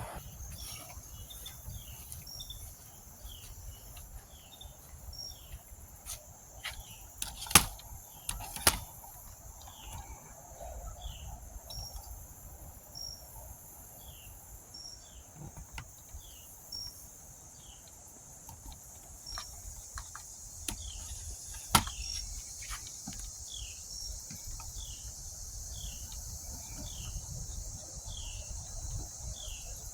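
Steady high-pitched drone of insects, with short chirps repeating about once or twice a second. A few sharp clicks stand out, the loudest at about 7 and 9 seconds in and again at about 22 seconds in.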